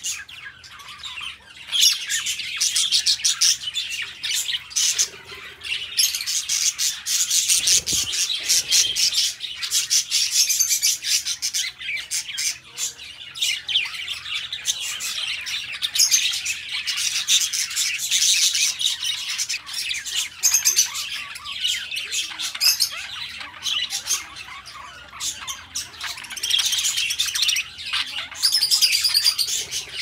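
A flock of budgerigars chattering, with many quick high chirps overlapping without a break.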